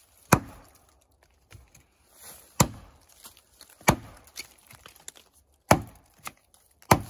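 Hand-forged bushcraft axe chopping into a small alder trunk: five sharp blows, one to two seconds apart, with a lighter knock near the end. These are back-cut strokes to fell the tree.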